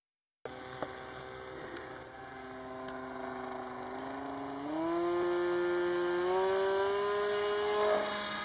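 AXN Floater foam RC plane's electric motor and propeller running with a steady whine, stepped up in pitch and loudness twice as it is throttled up for a hand launch.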